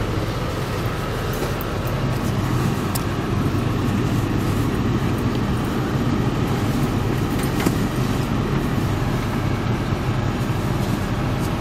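Cabin sound of a diesel multiple unit under way: a steady low drone from the diesel engine, with wheel and rail noise and a few sharp clicks.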